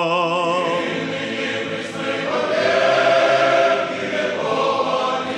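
Male monastic choir singing Russian Orthodox chant in slow, held chords, moving to a new chord about two seconds in.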